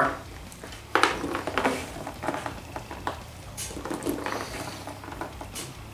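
Irregular knocking and shuffling as handfuls of loose gummy fruit snacks are scooped and pushed around on a tabletop, with a sharp knock about a second in.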